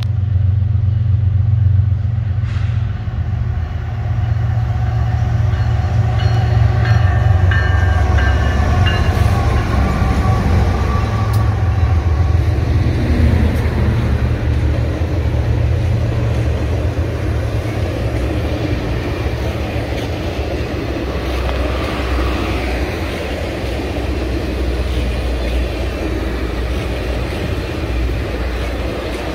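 Two BNSF GE ES44C4 diesel locomotives, V12 engines working, approach and pass with a loud low rumble that is strongest in the first dozen seconds. After them come the steel wheels of a long string of stainless-steel passenger cars, rolling past at speed with an even noise.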